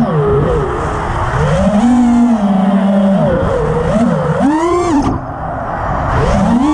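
FPV quadcopter's four T-Motor F60 v3 2350kv brushless motors spinning 5-inch props, a buzzing whine whose pitch keeps rising and falling with the throttle. About five seconds in the pitch climbs sharply, then drops away for a moment before the motors pick up again.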